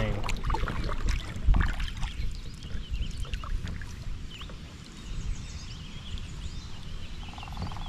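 Kayak paddle dipping and splashing in the water, then a few sharp knocks as the paddle is handled and laid across the kayak, over a steady low rumble.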